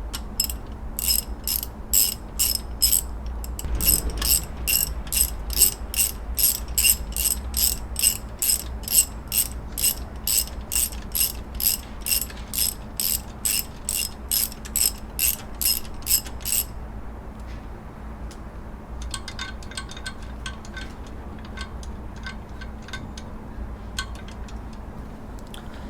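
Ratchet wrench clicking as it turns the alternator belt tension bolt on a Subaru Impreza, backing it out to slacken the belt. There are about two sharp clicks a second for some sixteen seconds, then a stretch of fainter, quicker clicking.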